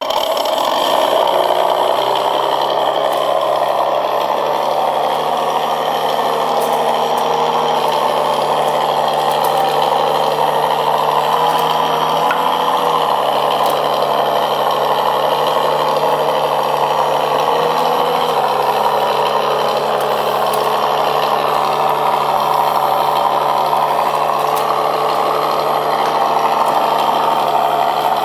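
1/6-scale RC crawler running with a simulated V8 engine sound, a steady engine note that steps up and down in pitch a few times (about 1, 12, 13 and 18 seconds in).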